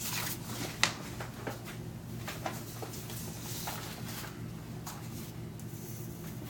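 Sheets of paper handled on a wooden table: a printed page is slid away and the next one laid down, with scattered soft rustles and light taps over a steady low hum.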